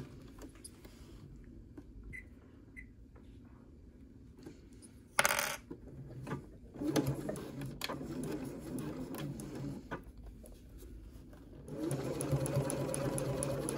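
Domestic sewing machine stitching a fabric tab across a zipper end, running in short stop-start runs from about seven seconds in and then steadily near the end, slowly over the zipper. A brief sharp handling noise about five seconds in.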